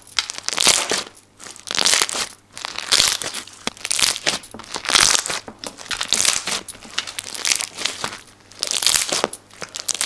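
Hands squeezing and kneading a thick homemade slime, which crackles and clicks in a burst with each squeeze, about once a second.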